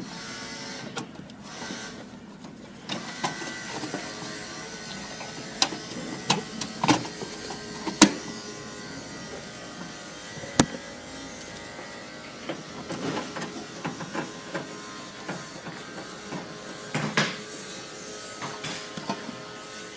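Scattered sharp clicks and knocks of computer hardware being handled as the CPU cooler is taken off a desktop motherboard, over a faint steady mechanical hum.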